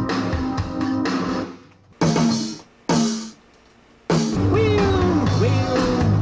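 Instrumental music with guitar and drums. It breaks off about a second and a half in, leaving two short loud stabs about a second apart. It comes back in about four seconds in with a gliding lead line over a steady low bass.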